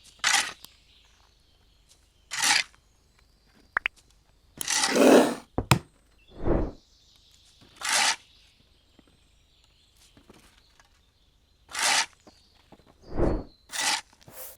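A scattered series of short scrapes and rustles while heavy cooking gear is handled, with two dull thuds, about six and thirteen seconds in.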